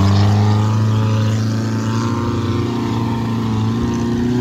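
Off-road vehicle engine running hard under load through mud, one steady drone whose pitch climbs slowly and evenly.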